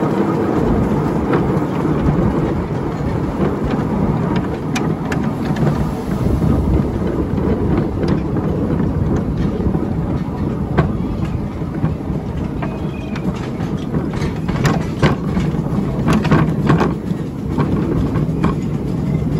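Miniature railway train running, heard from the carriage just behind the locomotive: a steady rumble of the engine and wheels on the rails, with scattered sharp clicks of the wheels over rail joints that come more often in the second half.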